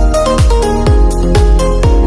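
Electronic dance music with a steady four-on-the-floor kick drum, synth chords and hi-hats.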